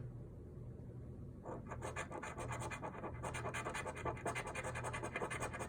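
Rapid scratching of a scratch-off lottery ticket, a coin or scraper rubbing the latex coating off the card in quick repeated strokes, starting about a second and a half in.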